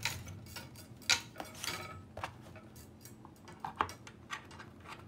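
Scattered metallic clicks and clinks of a coax connector being handled and fitted to an SO-239 socket on a loop antenna's matchbox, the sharpest click about a second in.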